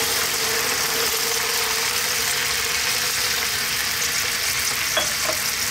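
Pork belly and freshly added coconut milk sizzling in a pan on the stove: a steady hiss with a faint steady hum underneath, and two light clicks about five seconds in.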